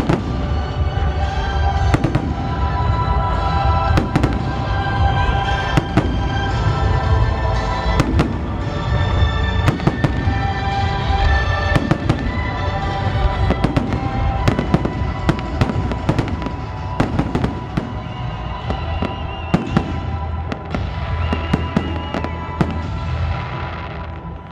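Fireworks display: a dense barrage of shell bursts, many sharp bangs in quick succession, over music with long held notes. The bangs stop near the end.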